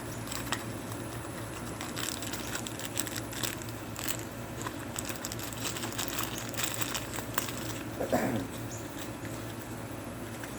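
Small clicks, taps and rustling from hands opening and handling a little box of scope rings, over a steady low hum.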